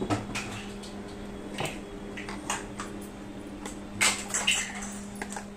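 Kitchen utensils clinking and tapping against pots and dishes, with a louder cluster of clinks about four seconds in, over a steady low hum.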